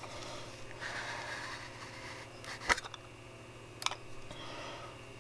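A clear plastic container holding a small action figure being handled and tipped: plastic rubbing and rattling, with two sharp clicks a little over a second apart near the middle.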